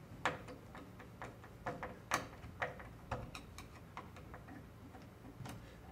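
Soft, irregular clicks and ticks of wires being fitted and handled at a control box's screw terminal block, about a dozen scattered taps.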